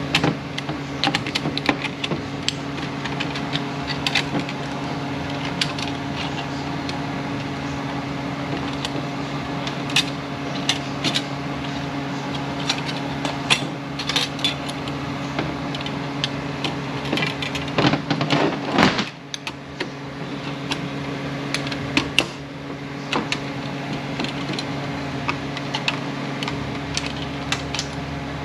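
Irregular small metallic clicks, taps and scrapes of a screwdriver and snap ring against a metal transmission clutch housing as the snap ring is worked into its groove by hand, with a denser flurry of clicking about eighteen seconds in. A steady low hum runs underneath.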